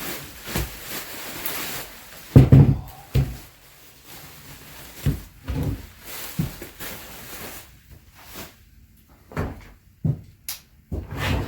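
Handling noise from a new chainsaw and its packaging: a series of separate knocks and thumps with rustling between them, the loudest thump about two and a half seconds in.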